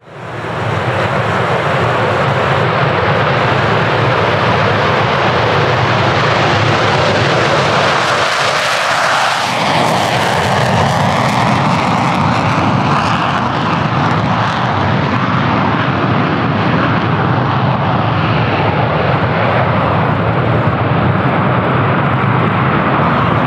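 Loud, continuous jet noise from a pair of EA-18G Growlers, each with two General Electric F414 turbofans, flying low in formation and then climbing away. A whine in the noise bends in pitch about ten seconds in as the jets pass.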